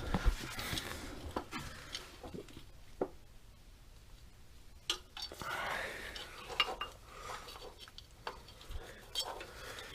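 Scattered metal clicks, clinks and scrapes of an oil filter wrench being fitted and worked onto a truck's oil filter to loosen it.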